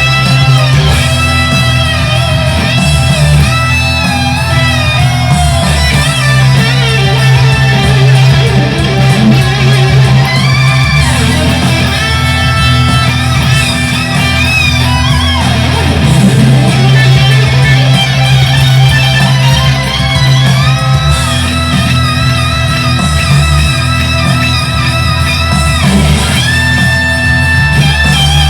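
Electric guitar, a Fender Stratocaster through a Boss Katana 100 amplifier, playing an improvised lead with many bent and gliding notes over held low bass notes that change every few seconds.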